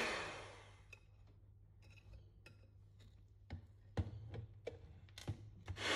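Electric hand mixer switched off and winding down, then a few light clicks and taps at the glass mixing bowl, before the mixer starts running again near the end.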